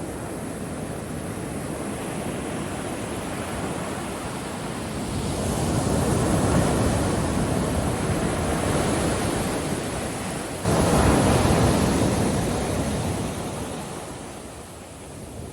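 Ocean surf washing on a beach, swelling about five seconds in. A louder wave surges in abruptly near eleven seconds, then ebbs away toward the end.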